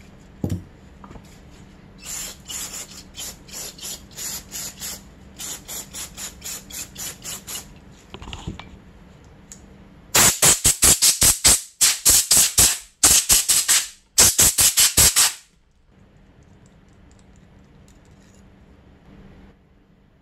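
Cleaning of a Keihin FCR carburetor's float bowl: a thump near the start, then a run of short, evenly repeated bursts of hissing scrubbing noise. About halfway through come five seconds of much louder, rapid bursts in clusters.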